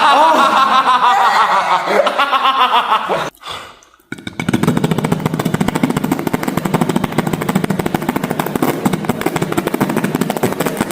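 Beatboxer imitating a helicopter with the mouth: wavering, whining vocal sounds, a brief pause, then a fast continuous chopping flutter like rotor blades.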